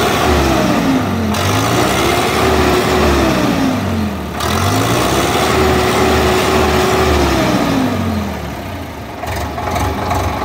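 Preet 6049 Super tractor's four-cylinder inline-pump diesel engine being revved with the foot throttle. A rev falls away at the start, then it rises twice more, each time holding high for a second or two before dropping back. Near the end it settles to a steady idle.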